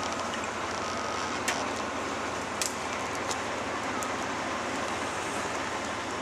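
Diesel engine of heavy earth-moving machinery running steadily while a backhoe loader works stuck in deep mud, with a couple of brief clicks.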